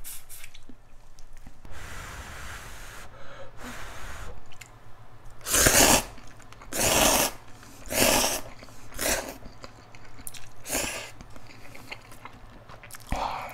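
A person eating ramen noodles and shrimp: chewing at first, then about five loud slurps of noodles sucked up from about halfway in, with chewing between.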